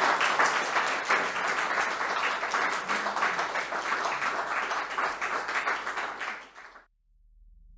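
Audience applauding steadily, a dense patter of many hands clapping, which fades out about seven seconds in.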